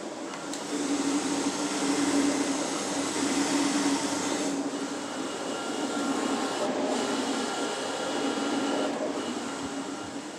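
Roland wide-format printers running at full speed: a steady whirring hum that grows louder about a second in, then swells and fades every couple of seconds.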